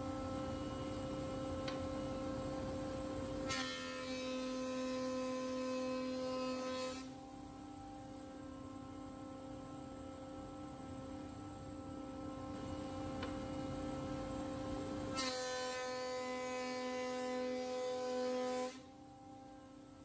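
Planer-thicknesser running with a steady motor hum and whine. Twice, for about three seconds each, the board passes through the cutterhead and a louder, brighter cutting noise rises over the hum as the motor's tone dips slightly under load.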